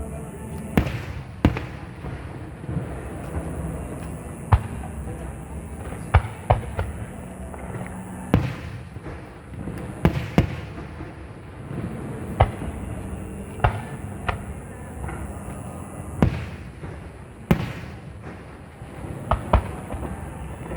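Aerial fireworks shells bursting: about fifteen sharp bangs at irregular intervals, each followed by a short echoing tail, over a steady low rumble.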